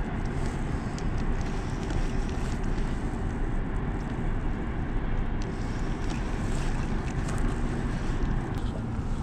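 Wind buffeting the microphone in a steady low rumble, with a few faint clicks from a spinning reel being cranked while a hooked fish is played.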